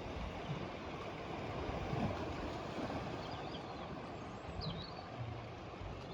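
Steady outdoor rushing noise with a low rumble, and a few faint high bird chirps around the middle.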